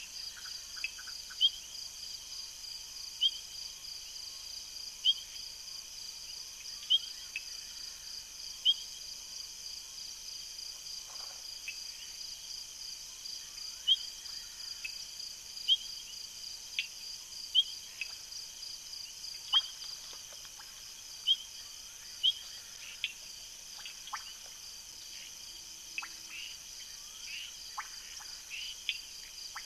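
Night chorus of frogs and insects: a steady, pulsing high-pitched trill throughout, with a loud short chirp repeated about every two seconds, pausing briefly near the middle.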